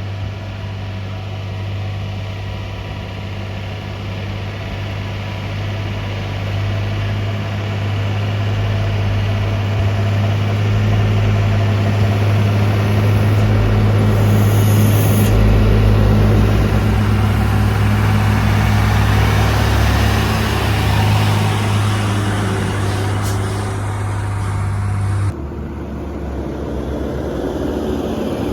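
Truck's diesel engine running hard under load on a climb, growing louder for several seconds. The sound changes abruptly near the end.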